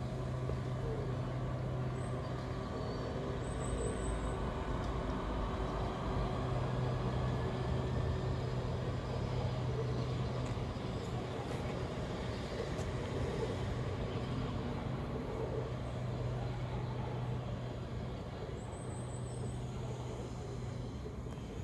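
Southeastern Class 395 "Javelin" electric multiple unit pulling away from the platform: a steady low electric hum and rumble, with a faint rising whine a couple of seconds in, easing off as the train draws away.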